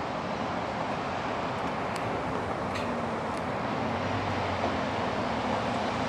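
Steady noise of passing motor traffic that swells up just before and then holds level, with a faint low hum and a few faint high clicks.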